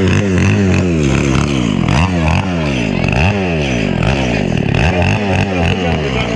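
An engine revved up and down over and over, its pitch rising and falling about once or twice a second over a steadier low running note.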